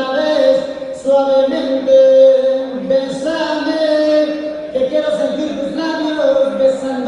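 A song with sung vocals played loud: a boxer's ring-walk entrance music.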